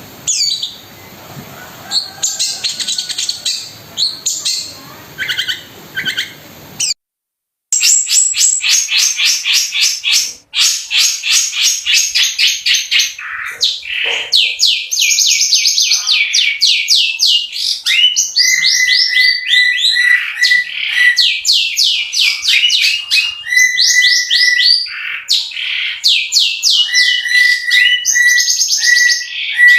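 Long-tailed shrike (cendet) singing hard: rapid-fire runs of sharp, downward-sweeping notes, with short steady whistles mixed in. The song cuts out briefly about seven seconds in, then resumes louder and cleaner.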